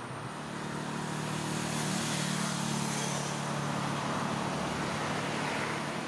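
A road vehicle passing, its engine hum and tyre noise swelling to a peak about two to three seconds in, then easing off.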